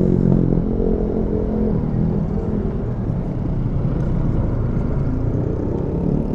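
Honda SH150i scooter's single-cylinder four-stroke engine running while under way, its note shifting a little in pitch with the throttle, over a steady low rumble.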